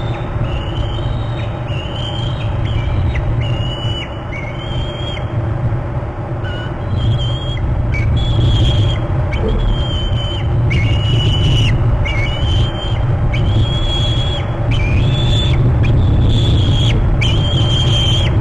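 Bald eagle calling: a long series of short, high, thin whistled calls, about one a second, over a steady low rumble.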